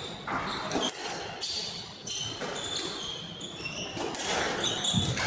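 Squash rally: the ball cracks off the rackets and walls again and again, with shoes squeaking in short chirps on the wooden court floor, echoing in the hall.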